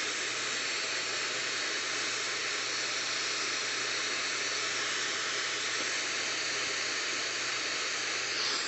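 Steady FM radio static: an even hiss with no voice or tones in it, which cuts off abruptly right at the end.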